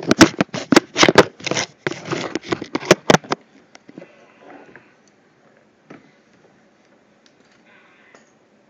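Rifle bipod fitted to a paintball marker being worked, its legs extended and retracted: a quick run of sharp clicks and rattles for about the first three seconds, then only faint handling noise.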